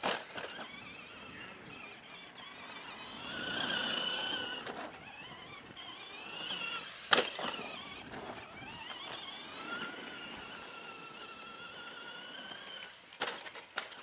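Lunch Box radio-controlled truck driving on tarmac: its electric motor and gears whine, rising and falling in pitch with the throttle, over the rumble of its tyres. A sharp knock about halfway through, the loudest sound, and two more near the end.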